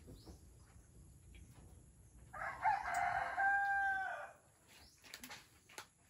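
A rooster crowing once, a single call about two seconds long starting a little after two seconds in.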